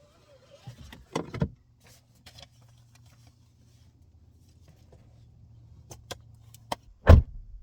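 Car engine idling as a steady low hum, with scattered clicks and knocks of someone handling things in the car. The hum stops about seven seconds in, and a loud heavy thump follows at once.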